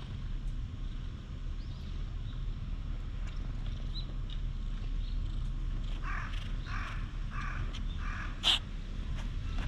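A crow cawing four times in quick succession, about two-thirds of a second apart, starting about six seconds in, over a steady low rumble. A sharp click near the end is the loudest sound.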